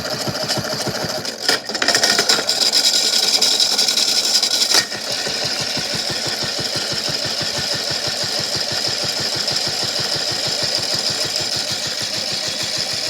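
Toy washing machine's small motor running, with a fast, steady knocking from the big rock tumbling in its drum. It gets louder from about a second and a half in until about five seconds, then settles back.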